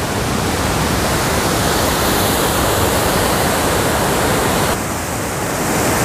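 Waterfall rushing: water pouring over rocks in a loud, steady roar of noise, a little softer and duller for the last second or so.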